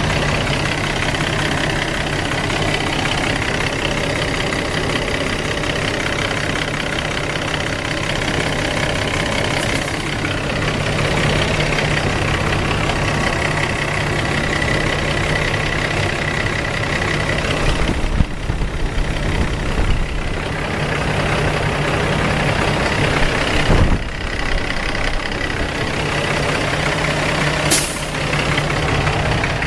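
Cummins ISX heavy-duty diesel engine idling steadily while the freshly refilled coolant circulates, as a check after the EGR cooler replacement. A few brief knocks or clicks sound over it in the second half.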